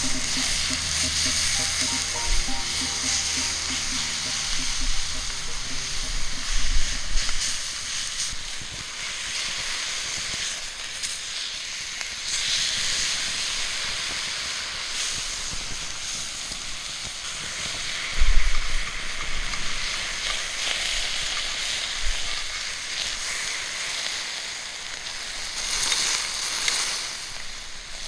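Steak sizzling as it cooks over a wood fire, a steady hiss throughout.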